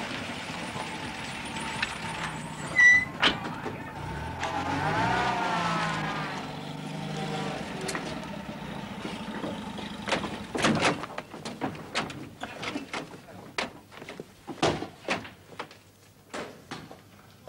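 A motor vehicle drives up, its engine note rising and falling, with a short high squeal about three seconds in. It is followed by a long run of knocks and clicks.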